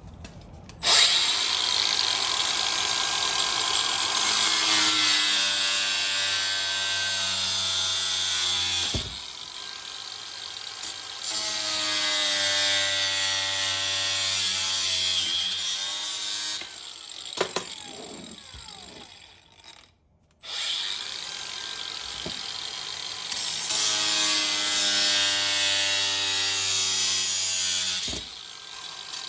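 Angle grinder with a cutting disc running and cutting in several long passes, its motor whine shifting in pitch. About two-thirds of the way through it winds down to a stop with falling pitch, then starts up again.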